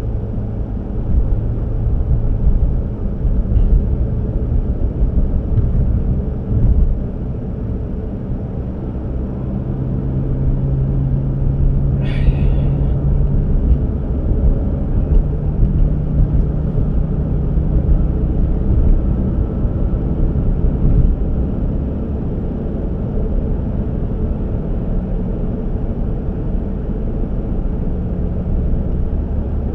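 Steady low rumble of a moving road vehicle, heard from inside: engine hum and road noise, with the hum's pitch drifting a little. A brief hiss cuts through about twelve seconds in.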